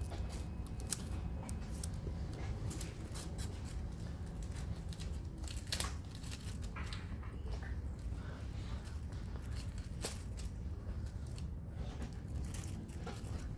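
A strip of paper rustling and crinkling as it is handled and bent into a loop, with scattered light crisp clicks. A steady low hum runs underneath.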